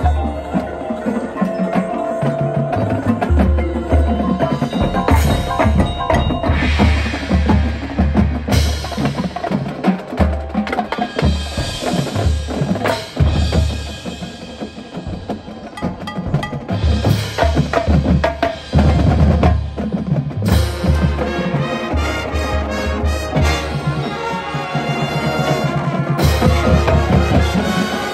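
Marching band playing its field show: brass with the drumline and front ensemble percussion, including mallet keyboards and chimes, over repeated low bass drum hits.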